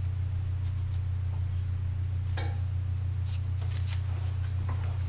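A steady low hum, with a few faint soft handling sounds as a slice of buttered bread is laid onto a cheese slice on a paper plate, including one light click about halfway through.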